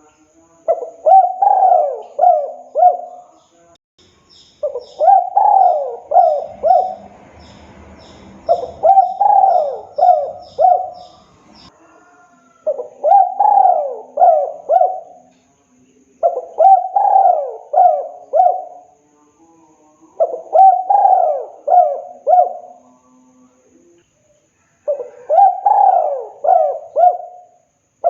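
Spotted dove (tekukur) singing its cooing song: a phrase of about four coos, the first rising then falling, repeated seven times with a short pause between phrases. Faint high chirping of a small bird runs behind the first few phrases.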